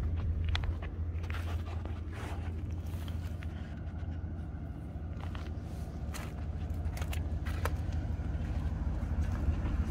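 Footsteps crunching through dry grass and weeds, with scattered light crackles and scrapes, over a steady low rumble.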